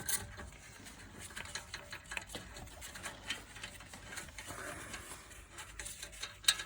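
Faint, scattered metallic ticks and rattles of hand tools working a brake caliper bolt loose, with one sharper click near the end.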